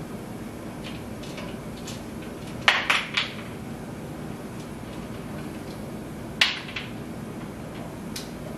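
Sharp metallic clicks and clanks from a pressure canner's lid wing nuts being loosened by hand. A quick group of three comes about two and a half seconds in and another a little over six seconds in, with fainter ticks between, over a steady low hum.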